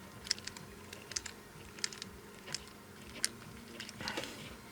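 Irregular light clicks and taps, a few a second, from small parts of a disassembled disco-ball lamp being handled and fitted tight by hand.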